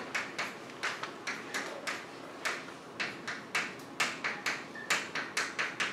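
Chalk on a blackboard as words are written out: an irregular run of sharp taps and short scratches, about three or four a second.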